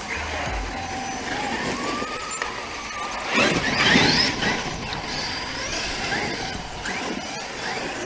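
Electric RC monster trucks driving over grass, their motors whining. About three and a half seconds in, one truck accelerates hard and its whine climbs steeply in pitch and grows loud for about a second.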